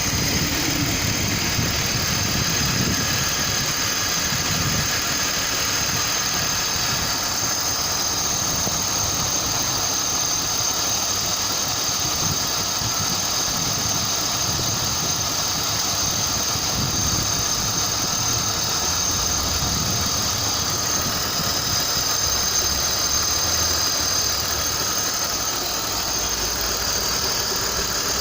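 BMW M52TU 2.8-litre straight-six engine running steadily with a rhythmic, dull knock, whose cause the owner does not know.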